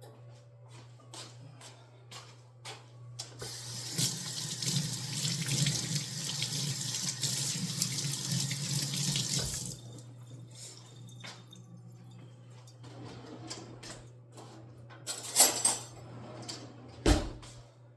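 Kitchen tap running into a sink for about six seconds, then shut off abruptly. Small clicks and knocks follow, with two louder knocks near the end.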